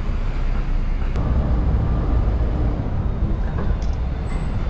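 Double-decker tourist bus driving along, a steady low rumble of engine and road heard from its open upper deck.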